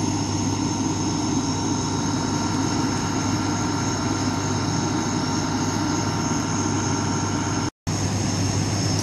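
Fire engine idling: a steady, unbroken engine drone with a low hum. The sound drops out for a moment about eight seconds in.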